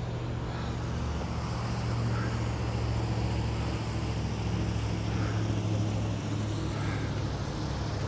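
Steady low drone of motor-vehicle traffic: a heavy engine hum that grows slightly louder over the first couple of seconds and then holds.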